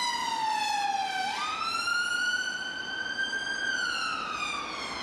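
Ambulance siren in a slow wail. The pitch falls for about a second, jumps up, climbs slowly, then starts to fall again near the end.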